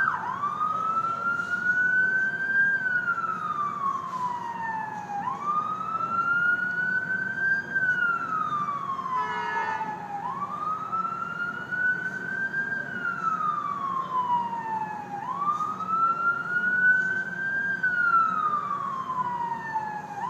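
Ambulance siren on its slow wail: the pitch rises over about two and a half seconds and falls back over about two and a half, four times, over a steady low rumble.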